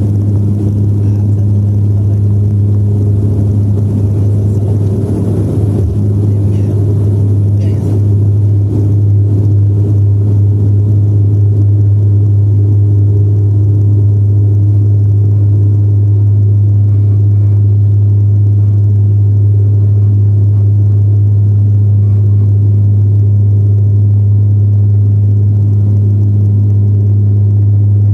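Dash 8 Q400 cabin at takeoff power: the turboprops' six-blade propellers make a loud, steady low drone. There is a rougher rumble for the first several seconds, which then smooths out while the drone holds.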